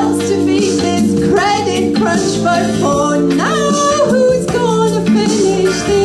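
A woman singing into a microphone over an instrumental backing track, holding one long note about three and a half seconds in.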